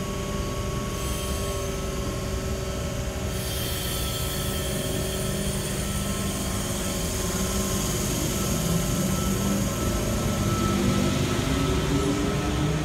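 Sydney Trains V-set double-deck electric train pulling away and running past close by. Its motors whine, rising in pitch as it gathers speed, over the rumble of its wheels on the track, growing louder as it nears.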